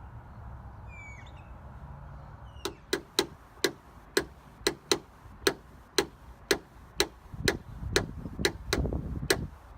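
Sharp, light taps on a 2015 Honda Civic's front door panel, about two a second, starting a couple of seconds in. It is paintless dent repair tapping, just before the dent is finished.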